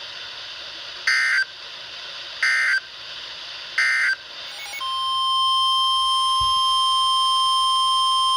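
NOAA Weather Radio Emergency Alert System signals: three short bursts of SAME digital data about a second and a half apart, then the steady 1050 Hz warning alarm tone, which starts about five seconds in and signals that a new warning is about to be read.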